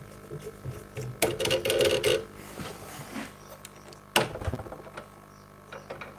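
Handling noise at a scroll saw with its blade slackened and the saw not running. A rattle of about a second comes just after the start, and a sharp metallic click about four seconds in, as the blade is freed at the clamp and threaded through the workpiece.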